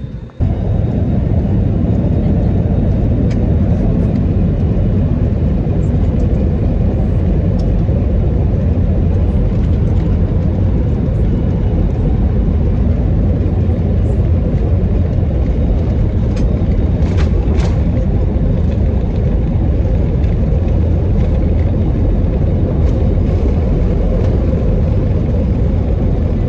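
Steady, loud cabin rumble inside a jet airliner, from the engines and the airflow. It starts abruptly about half a second in, and a few faint clicks come a little past the middle.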